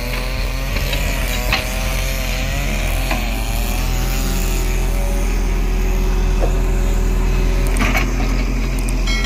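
JCB 140 tracked excavator's diesel engine running steadily under load, with a wavering hydraulic whine over the first few seconds as the arm moves. The bucket scrapes through stony soil, with several sharp knocks of rock against steel.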